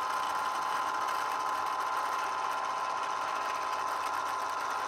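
Hy-Gain CD-4511 antenna rotator's electric motor and gear drive running, turning the antenna with a steady whine.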